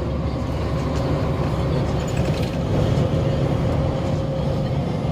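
Steady low drone of a semi-truck's engine and tyres heard from inside the cab while cruising on the highway, with a thin steady whine above it.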